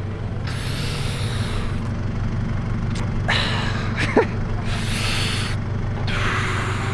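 A steady low motor hum, with four short breathy hissing bursts over it and a brief falling tone about four seconds in.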